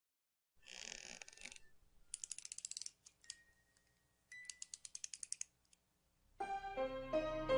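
Quiet anime sound effects: a short hiss, then two runs of rapid clicking, about fifteen ticks a second, with a faint thin tone between them. Music with plucked, harpsichord-like notes comes in near the end.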